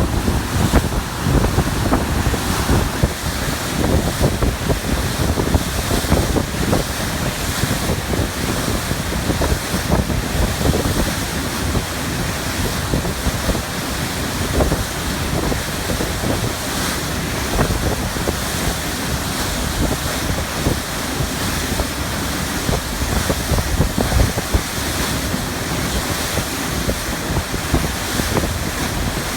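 Strong wind buffeting the microphone in a 25-knot blow, over the rush of choppy sea water. It is steady, with constant gusty fluttering in the low end.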